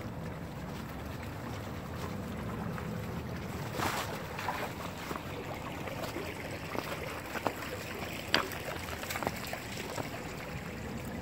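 Footsteps scuffing and crunching over dry leaves and stones in a shallow creek bed, with a few sharp snaps and knocks, the loudest about eight seconds in, over a steady low rush of outdoor noise.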